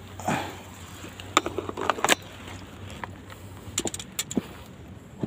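A run of short, light clicks and knocks in two clusters, about a second and a half in and again near four seconds in, over a steady low hum.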